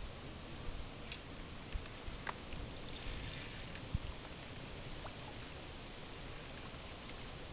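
Faint, steady outdoor background noise with an uneven low rumble and a few brief clicks.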